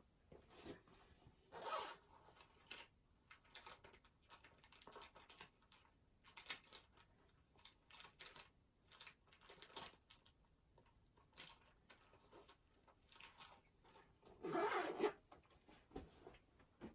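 Quiet desk sounds of pen-and-paper study: many short scratchy strokes and light taps, with one longer, louder rustle of paper about 14 seconds in.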